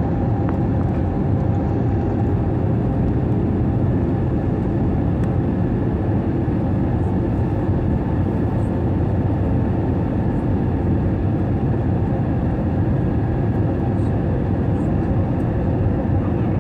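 Airbus A321 cabin noise on approach: a steady, deep rumble of engines and rushing air, with a faint even hum on top and no change in level.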